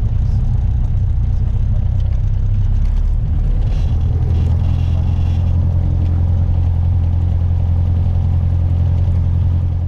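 Piper PA-28's piston engine and propeller running steadily at low power while taxiing, heard from inside the cabin as a loud, steady low drone. The engine note shifts slightly about halfway through.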